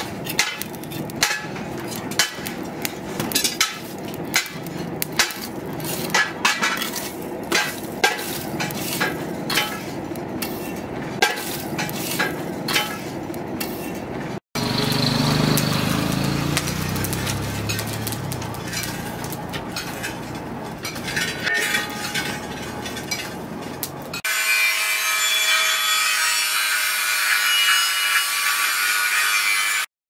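Charcoal in a forge crackling and clicking as a metal poker stirs it. After a break comes a louder, rougher stretch of scraping and rubbing. Near the end a steady high-pitched whine with hiss starts up.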